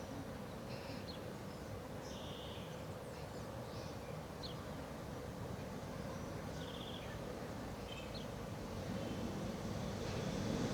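Jet engines of a Boeing 737-800, CFM56-7B turbofans, heard as a steady low rumble that grows louder near the end. Short high chirps sound over it.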